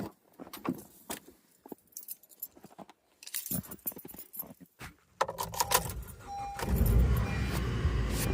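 Keys jangling and clinking. From about five seconds in, a car's steady running noise takes over, with a loud low rumble from the engine and road.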